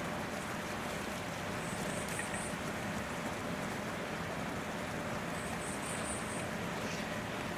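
Steady outdoor background noise, with two brief runs of high, evenly spaced peeps, one about two seconds in and one near six seconds.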